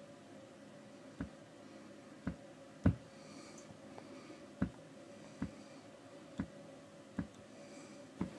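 1966 Fender Super Reverb tube amp popping through its speaker: about eight irregular, sharp ticks of varying size. The pops come with bias drift and blue flashes in the 6L6 power tubes; a 220k bias resistor out of tolerance, with a suspected cold solder joint, is the likely cause.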